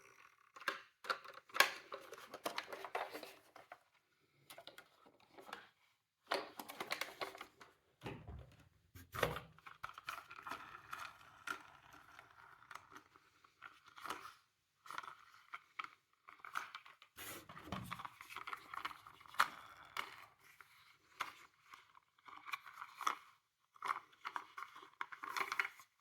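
Toy miniature cars being handled, giving irregular plastic clicks, knocks and rattles. Short scraping or whirring patches fall between the clicks.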